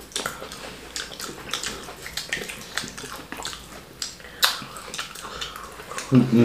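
Eating sounds from plantain fufu with slimy ogbono and egusi soup: irregular wet mouth smacks and small clicks, with one sharper click about four and a half seconds in.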